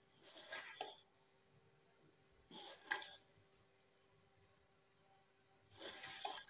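A hand mixing dry flour and ground radish in a stainless-steel bowl: three short bouts of rustling and scraping against the bowl, about two seconds apart.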